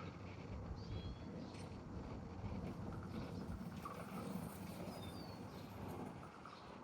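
Neighborhood ambience: a steady low rumble with a few short bird chirps, about one and five seconds in.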